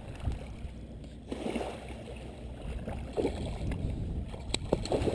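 Shoreline ambience: a steady low wind rumble on the microphone with water lapping at the beach, and a few faint knocks near the end.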